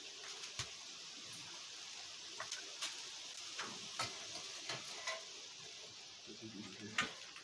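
Faint steady background hiss with scattered light ticks and taps, about ten in all, irregularly spaced.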